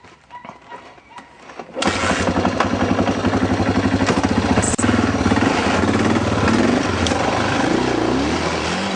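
Yamaha XT 600's air-cooled single-cylinder engine comes on suddenly about two seconds in and runs with a rapid, even beat. A few faint clicks come before it.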